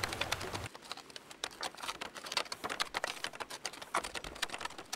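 Wooden wheelbarrow pushed over a grassy track: a quick, irregular run of clicks and knocks from its spoked wooden wheel and wooden frame.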